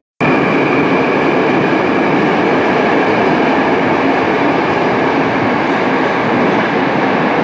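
Moscow metro train moving along the station platform: a steady, loud rumble of wheels and running gear with a faint high whine over it.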